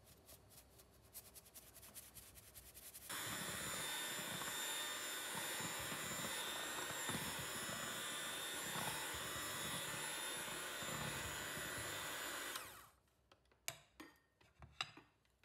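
Flour being shaken through a mesh sieve, a quick run of light ticks and rattles; then an electric hand mixer starts about three seconds in and runs steadily as it beats the flour into cake batter, stopping suddenly about three seconds before the end. A few light clicks and knocks follow.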